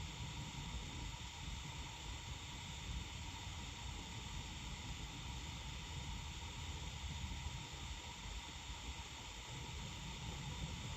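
Faint, steady hiss with a low, uneven rumble of wind on the microphone: quiet outdoor air with no distinct event.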